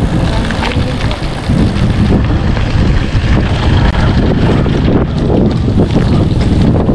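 Wind buffeting the microphone of a cyclist on the move: a heavy, uneven low rumble. The wind is gusty, typhoon-driven air.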